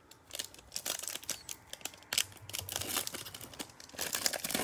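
A foil trading-card pack (Panini Mosaic basketball) being torn open by hand. Its wrapper crinkles in a rapid string of crackles and snaps that grows densest in the last second.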